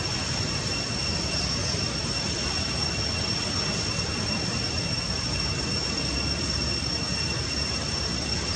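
Steady outdoor background noise: an even rushing hiss with a thin, steady high-pitched whine over it, and no distinct calls or knocks.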